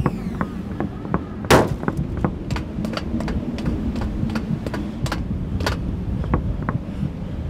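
A steady low rumble with irregular sharp knocks and clicks over it, the loudest about one and a half seconds in.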